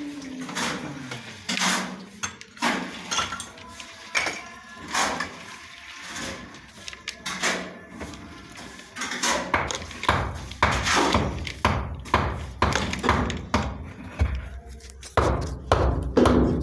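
Irregular knocks, clicks and scrapes of pliers working a plastic electrical conduit pipe set in a masonry wall. From about ten seconds in the knocks come heavier and more closely spaced, about one or two a second, with rubbing between them.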